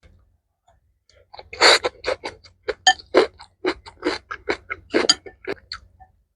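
Metal utensils clinking and tapping against a dish: a quick, irregular run of short sharp clinks, a few of them ringing briefly.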